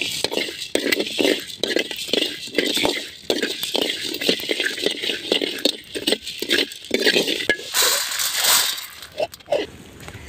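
Steel ladle stirring and scraping coriander seeds as they dry-roast in a metal kadai, the seeds rattling against the pan in quick repeated strokes, about three a second.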